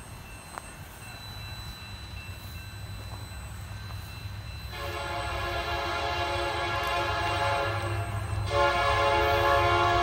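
Diesel locomotive's multi-chime air horn sounding: one long blast starting about five seconds in, then after a brief break a second, louder blast that carries on. Underneath, a freight train's cars rolling past with a steady low rumble.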